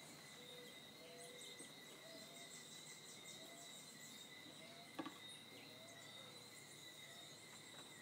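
Faint early-morning birdsong over a steady, high-pitched insect drone: short, repeated low bird notes about once a second or two, with scattered high chirps. A single sharp click about five seconds in.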